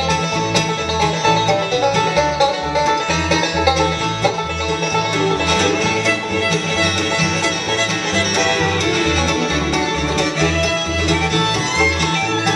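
Live bluegrass band playing: five-string banjo, fiddle, mandolin, acoustic guitar and upright bass together, the bass plucking a steady, even beat underneath.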